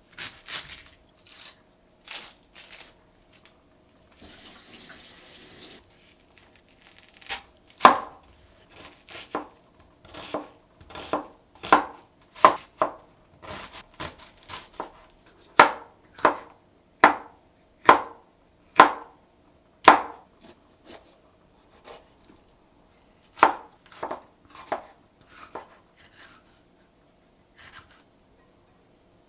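Kitchen knife chopping onion and then bell pepper on a wooden cutting board: a series of crisp knocks, at their most regular about one a second. About four seconds in, a dry rustle of onion skin being peeled lasts under two seconds.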